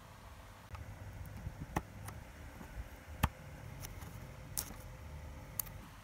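Small plastic clicks and handling noise as a laptop keyboard's ribbon cable is unlatched and pulled from its connector: about seven scattered clicks, the sharpest about three seconds in, over a low rumble of hands moving the keyboard.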